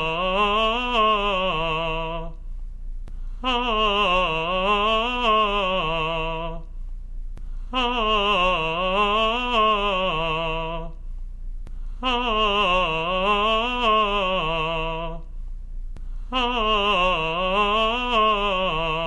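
A singer vocalizing a vocal warm-up exercise on a sustained vowel, with vibrato. Each phrase rises and falls twice and ends on a held lower note, and the phrase is repeated about every four seconds with a breath between.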